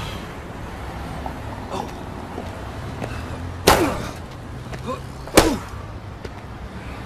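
A stiff bus-stop sign yanked off a shelter wall, then jammed down over a head: two sharp slaps about a second and a half apart, each trailing off in a quick falling twang, over a low steady hum.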